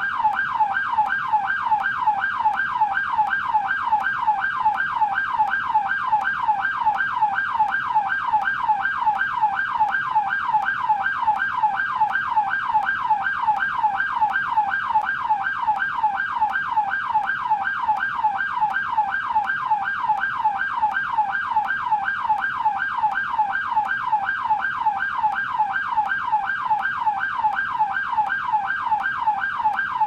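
American police yelp siren, slow version: a wailing tone sweeping up and down over and over, about two and a half sweeps a second, steady throughout.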